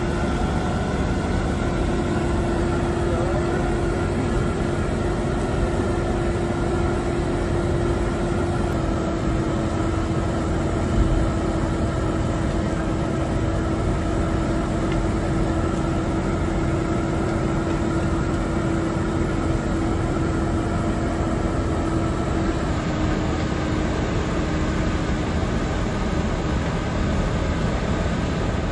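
Industrial machinery running steadily: a dense mechanical noise with a constant droning hum that steps slightly lower twice.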